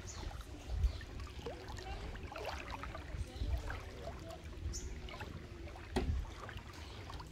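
Floodwater lapping and trickling against a small boat moving slowly through it, over a low uneven rumble, with a couple of short knocks.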